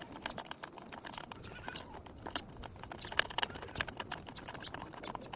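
Irregular light metallic clicking from hand tools as a greased chain adjuster bolt on a Honda CRF150RB is wound back into its thread.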